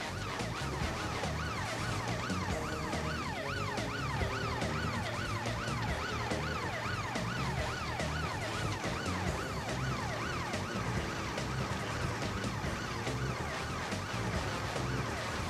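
Emergency vehicle siren rising and falling rapidly, about two sweeps a second, over background music.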